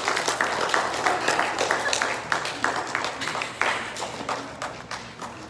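A small audience clapping, a quick run of claps several times a second that thins out and grows quieter toward the end.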